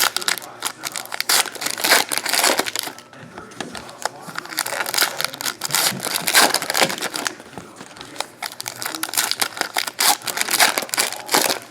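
Foil trading-card pack wrappers crinkling and tearing as packs are opened by hand, in a quick irregular crackle.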